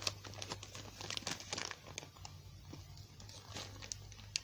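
Plastic blind-bag toy packaging crinkling and tearing in irregular crackles as it is pulled and worked open by hand, with a struggle to get it open.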